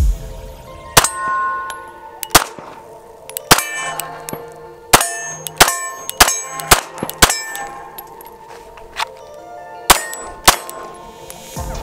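FN 509 Tactical 9mm pistol fired at a slow, uneven pace, about a dozen shots, several of them followed by a short metallic ring.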